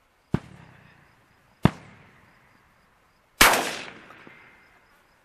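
Three shotgun shots about a second and a half apart, each followed by a short echoing tail; the third is the loudest and rings on longest.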